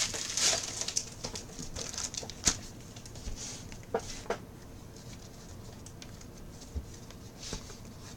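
Quiet handling of trading cards and their foil pack: a faint rustle with a few scattered light taps and clicks, the wrapper crinkling dying away in the first second.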